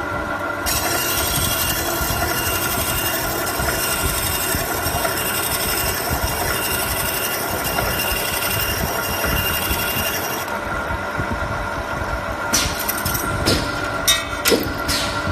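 Automatic circular sawing machine running with a steady motor hum while the saw blade cuts through rectangular metal tubes under coolant. The cut makes a harsh hiss that lasts about ten seconds and then stops. Several sharp metallic clanks follow near the end.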